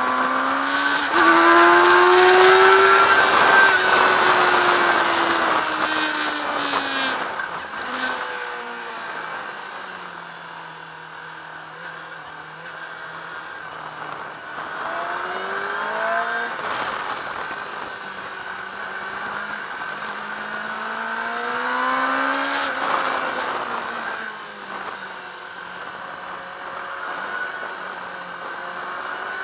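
Yamaha R6 inline-four engine on track, heard from a camera on the bike. It revs hard near the start, winds down under braking, runs at low revs through a corner, then pulls up again twice, with wind rush over it.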